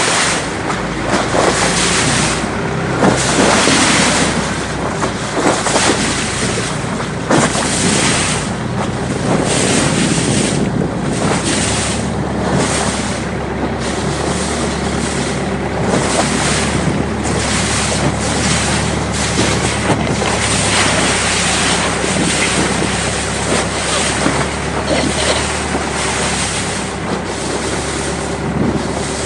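Thai longtail boat under way at speed: its engine hums steadily while water rushes and sprays along the hull, and gusts of wind buffet the microphone.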